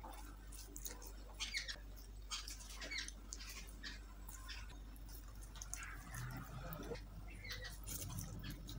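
Fingers squishing and mixing rice with dal on a banana leaf: a steady run of small wet clicks and squelches. Near the end a handful goes into the mouth and there are eating sounds.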